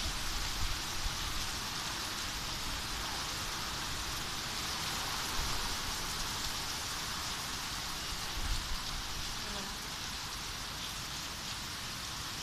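Heavy downpour: a steady hiss of rain falling on roofs and ground, with a couple of brief low bumps about five and eight seconds in.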